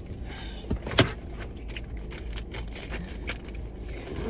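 Small clicks and rattles of things being handled inside a car, with one sharp knock about a second in, over a low steady rumble.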